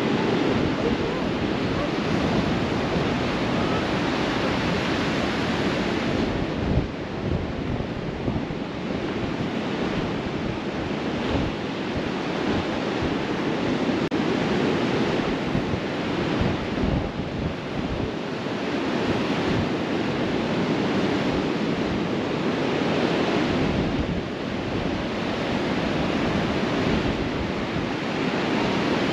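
Surf washing onto a sandy beach, swelling and easing every few seconds, with wind buffeting the microphone.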